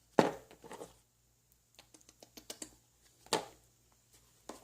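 Small toy objects being handled and set down on a hard surface: a run of light clicks and taps, with a sharper knock just after the start and another a little past three seconds in.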